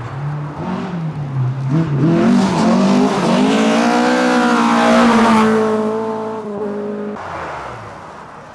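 Mk2 Ford Escort rally car under hard acceleration, its engine note climbing as it comes in. It is loudest as it passes about two to five seconds in, then the pitch drops and the sound fades away.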